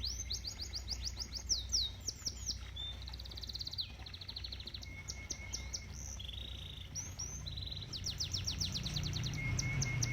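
Domestic canary singing: a varied song of rapid rolls and trills, each phrase a fast run of repeated high sweeping notes, changing to a new phrase every second or two. A steady low rumble runs underneath.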